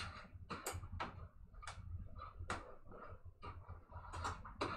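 A plastic card rubbing and tapping over a vinyl pinball art-blade decal as it is pressed flat onto the cabinet side wall: a run of short, irregular scrapes and ticks.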